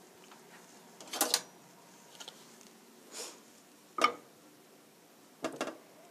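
A handful of separate clicks and clanks as a nonstick frying pan is handled and shifted on a gas stove's metal grate and metal tongs are picked up, the loudest about a second in and about four seconds in.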